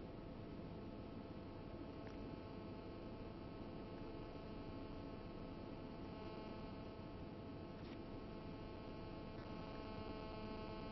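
Faint steady electrical hum with a low hiss: mains hum on the broadcast audio line, with no commentary.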